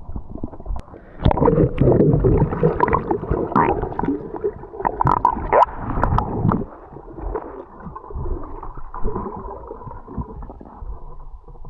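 Muffled underwater sound of a submerged camera, with water gurgling and bubbling and scattered knocks. Louder for the first half, quieter after about six seconds.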